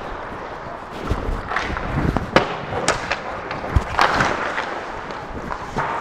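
Close-up sounds of ice hockey play in front of the net: a string of sharp cracks and knocks of sticks and puck, the loudest a little over two seconds in, over skate blades scraping the ice.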